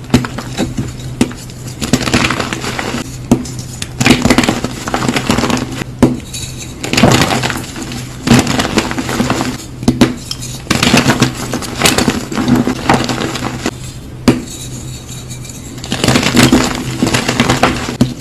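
Brittle, crunchy material being crushed for ASMR, in repeated bursts of crackling about a second long, with a gap of about two seconds near the end. A steady low hum runs underneath.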